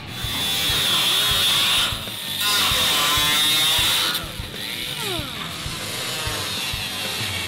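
Small cut-off wheel grinder slicing through Mustang strut tower sheet metal: a loud, high, steady whine in two runs of about two seconds each with a short break, then a lighter, quieter run with the pitch sagging as the wheel bites.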